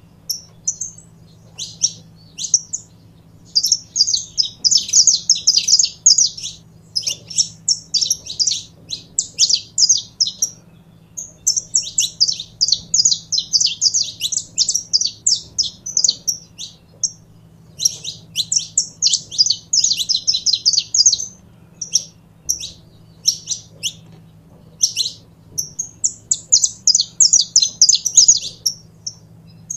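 Saffron finch singing: runs of quick, high chirps lasting a few seconds each, with single chirps in the gaps between runs.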